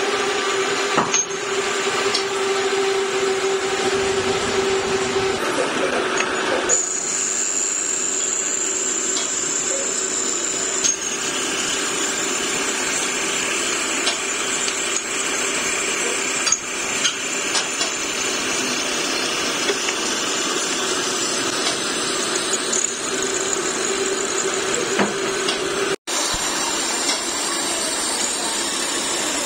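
Grinding machine running, its abrasive wheel grinding a steel truck kingpin under flooding coolant: a steady grinding hiss over a motor hum, with a thin high whine for a few seconds and a few light ticks. The sound cuts out for an instant near the end, then resumes.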